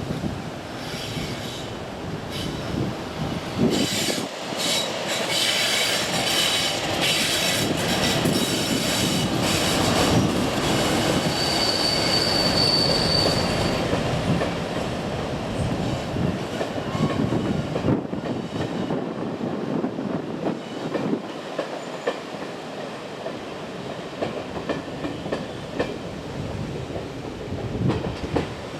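A train's wheels clicking over rail joints, with a brief high-pitched wheel squeal about twelve seconds in.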